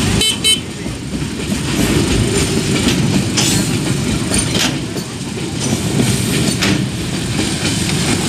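Container freight train rolling past close by: a steady low rumble of wagons, with wheels clacking over rail joints about once a second. A short high-pitched rattle sounds right at the start.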